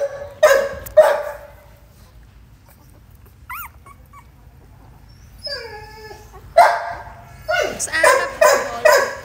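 Dog yelping and whining in short, high-pitched calls: three sharp yelps in the first second, a lull with a faint whine, then a run of yelps about two a second over the last few seconds.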